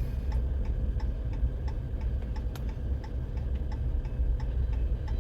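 Steady, even ticking, about three ticks a second, over a continuous low rumble.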